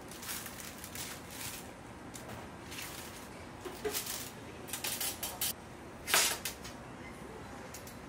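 Parchment baking paper rustling and crinkling in a series of short rustles as it is pulled back from the sides of a large baked castella sponge cake, the loudest about six seconds in.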